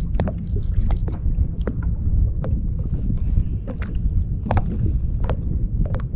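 Kayak moving on the water: irregular sharp splashes and drips, about one or two a second, over a steady low rumble.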